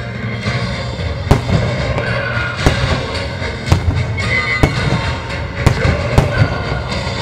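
Display fireworks going off in a pyromusical show: about six sharp bangs, spaced roughly a second apart, over the show's music with sustained tones.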